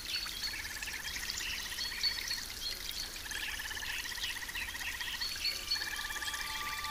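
Frogs trilling: three long, rapid trills of about two seconds each, with scattered short, higher chirps around them.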